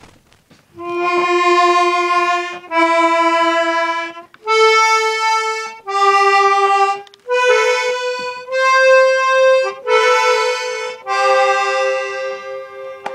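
Accordion playing a slow series of about eight held notes and chords, each lasting a second or so with short breaks between them.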